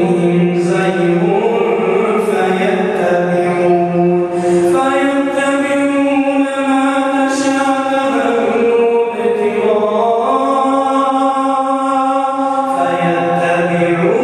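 A man reciting the Quran in a melodic chant, holding long drawn-out notes that step up and down in pitch every few seconds.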